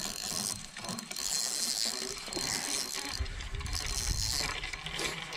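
Fishing reel being cranked, its gears whirring and clicking in spells.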